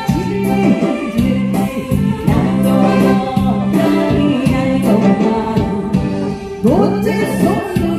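A Korean folk song (minyo) sung live over an instrumental backing track, with long, bending held notes.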